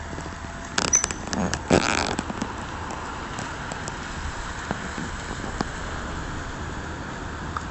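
A few short bumps and rustles of handling on a phone's microphone in the first two seconds, then a steady background hiss of outdoor noise.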